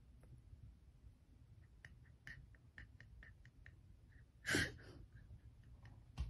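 Quiet room with faint scattered ticks, and one short breathy sound from a person about four and a half seconds in.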